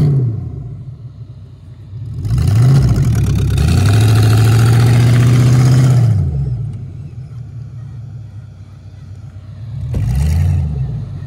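Pickup truck engine revving hard: the pitch climbs, is held high for about four seconds with the wheels spinning in the snow, then drops back; a shorter rev comes near the end.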